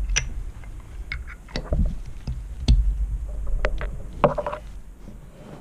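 Handling of a metal kart brake caliper by gloved hands while a piston is pressed in: a series of dull thumps and light clicks, with a brief squeak about four seconds in.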